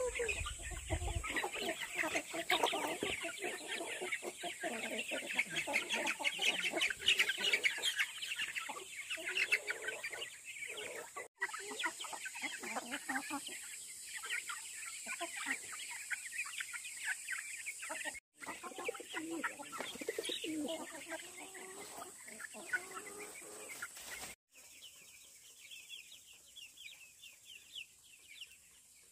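A flock of chickens clucking and calling, many short overlapping calls. The sound cuts out briefly three times and is quieter in the last few seconds.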